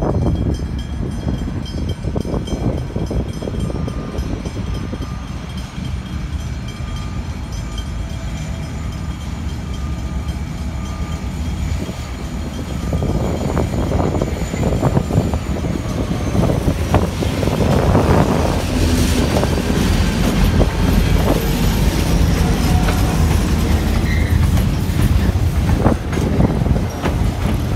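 An 81 class diesel locomotive hauling a container freight train past, its engine a steady low rumble. From about halfway the container wagons roll by, their wheels clattering and clanking louder.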